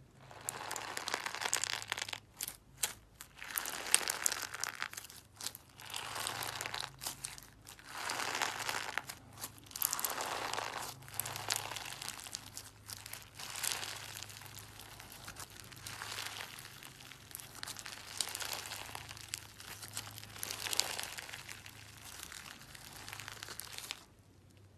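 Slime being squished, pressed and poked by hand, giving irregular bursts of fine crackles and clicks.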